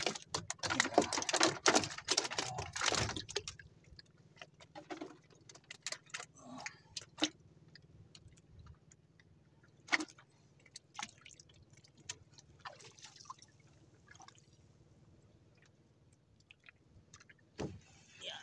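Fishing handline and tackle being handled in a small wooden outrigger boat: a quick run of clattering and tapping for about three seconds, then scattered light clicks and taps.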